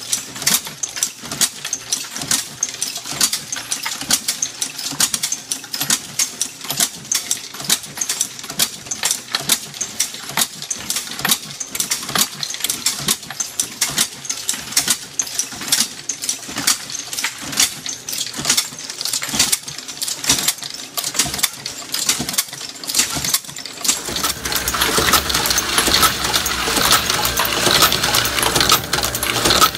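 Automatic brass-processing machine (Camdex) cycling, with a rapid run of metallic clicks and clinks as brass cases are fed, probed, deprimed and sized. The sound grows louder and fuller, with more of the machine's low hum, from about four-fifths of the way through.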